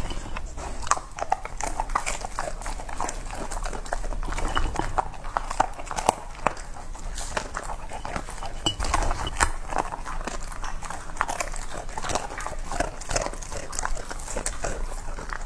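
Close-miked Samoyed eating wet food from a ceramic bowl: continuous wet chewing, smacking and licking, with many small quick clicks.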